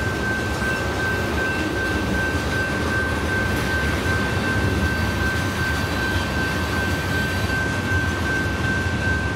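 Freight train of tank cars rolling past: a steady rumble of steel wheels on the rails, with a steady high-pitched tone over it.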